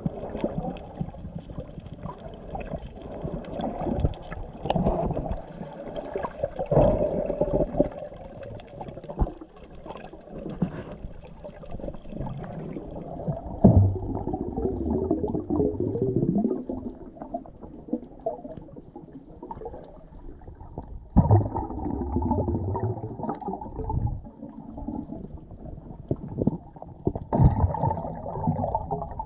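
Muffled underwater sound from a camera held below the surface while snorkeling: irregular water sloshing and gurgling, with a couple of sharp knocks, one about 14 seconds in and one about 21 seconds in.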